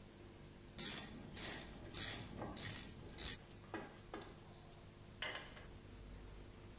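A ratchet spanner worked in about five short strokes, each a quick run of clicking, then a few single light metal clicks. This fits turning a bolt that jacks the tight front cover off the R380 gearbox.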